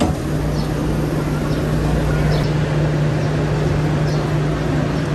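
A steady low mechanical hum over a wash of background noise, with a few short faint high chirps.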